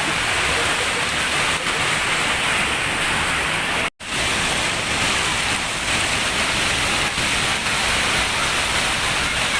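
Steady rush of flowing floodwater, with the sound cutting out abruptly for a moment about four seconds in.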